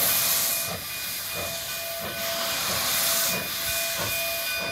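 Narrow-gauge K-36 steam locomotive No. 484 hissing steam from its open cylinder cocks, a steady loud hiss. Soft exhaust chuffs come about every two-thirds of a second as it works slowly.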